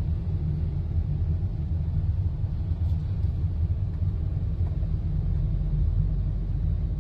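Steady low rumble of a car driving slowly, heard from inside its cabin: road and engine noise with nothing above it.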